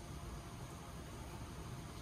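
Steady background hiss with a low rumble underneath and no distinct bird calls: the ambient noise of an outdoor recording at a bird feeder.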